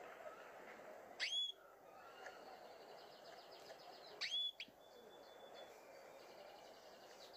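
Caged canaries calling: two sharp, brief chirps that sweep upward, about three seconds apart, with a faint fast trill in the background between and after them.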